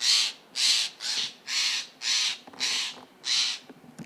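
Steller's jay giving a rapid series of harsh, rasping scolding calls, about two a second. Jays calling like this at one spot can be a sign that they are harassing a spotted owl nearby.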